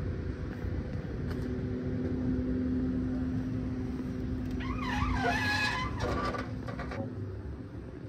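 Steady low rumble of nearby road traffic with a droning hum, and a brief wavering high-pitched call about five seconds in.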